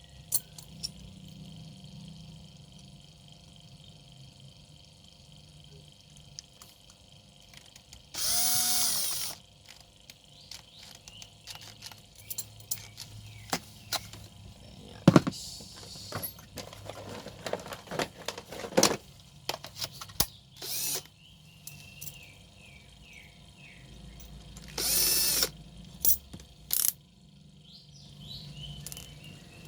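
A power tool's motor runs in two short bursts, once for about a second and again more briefly later on. Between them come many sharp clicks and knocks of tools and metal parts being handled and fastened.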